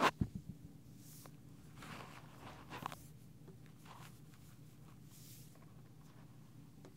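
A comb working through hair beside a binaural microphone: a sharp knock with a few low thuds at the start, then a scratchy rustling brush with small clicks about two to three seconds in, and fainter swishes later.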